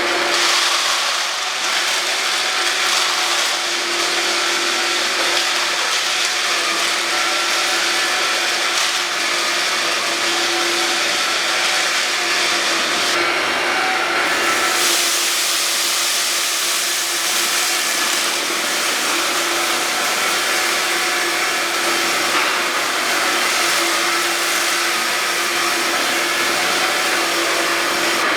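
Hoover Linx cordless stick vacuum cleaner running steadily: a rushing whine over a constant hum, with a brief change in the rushing sound about halfway through.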